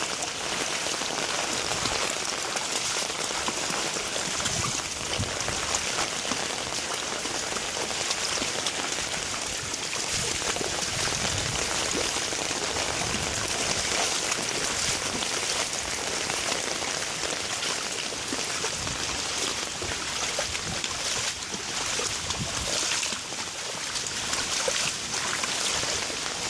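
Steady Hurricane Harvey rain falling: a dense, even hiss of rain with individual drops audible in it.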